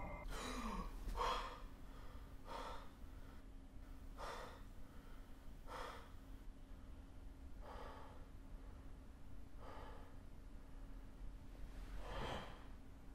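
A man breathing hard in startled gasps through an open mouth, the breaths coming quickly at first and then slowing to about one every two seconds, over a faint steady hum.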